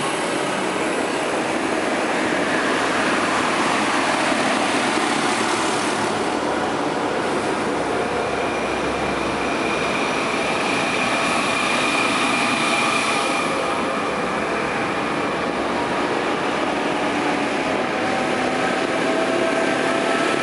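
Large Fendt tractors towing trailed farm machinery, Pöttinger forage wagons and a Claas rotary rake, driving past one after another at road speed. Their engines and big tyres make a steady, loud noise on the asphalt, with a high whine from about 8 to 13 seconds in.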